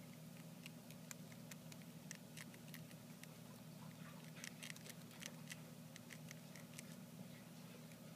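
Campbell's dwarf hamsters nibbling a millet spray: faint, irregular crackling clicks of seeds being bitten and husked, thickest about halfway through.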